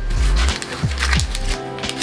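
Background music with a steady layered melody over a deep, repeated drum beat.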